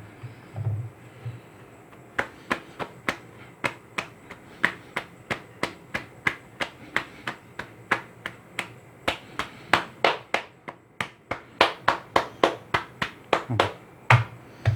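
Hands patting and pressing down on stuffed paratha dough on a board to seal its edges: a steady run of short slaps, about three a second, from about two seconds in, louder in the second half.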